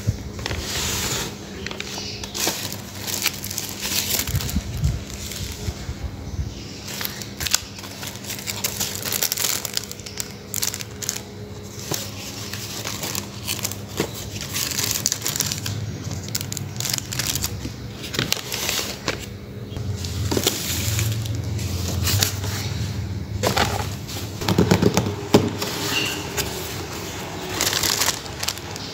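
Hands handling paper and cardboard craft pieces: irregular rustling and crinkling of paper and cellophane bags with light taps and scrapes on cardboard, over a low steady hum.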